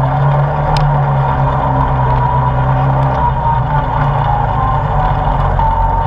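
ATV engine running steadily at a low, even speed on a rocky dirt trail, with a brief knock of loose stone about a second in.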